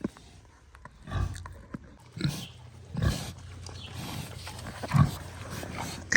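Pigs grunting as they eat, four low grunts spread over a few seconds, with a sharp knock at the very end.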